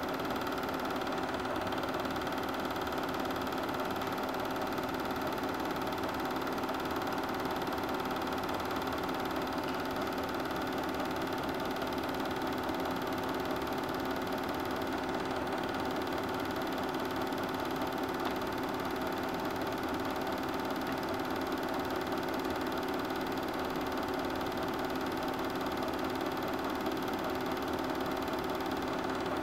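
Super 8 film projector running steadily, a constant mechanical hum with several held tones.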